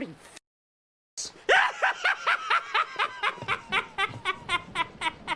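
Laugh sound effect: a short sound is cut off at the start, then after under a second of silence a high-pitched laugh begins, a fast run of evenly spaced 'ha' pulses, about four to five a second.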